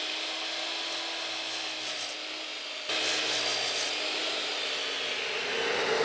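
Miter saw running and cutting through a block of walnut: a steady motor whine over the hiss of the cut. The sound changes abruptly and gets a little louder about three seconds in.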